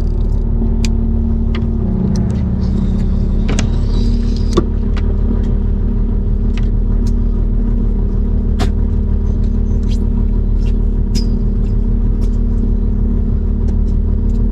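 Boat engine running steadily with a deep drone, its note shifting slightly about two and four seconds in, with scattered sharp clicks and knocks over it.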